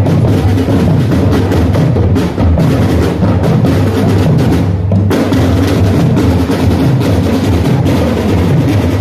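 A drum and lyre corps' drum line playing: marching snare drums and bass drums beating a steady, driving rhythm together.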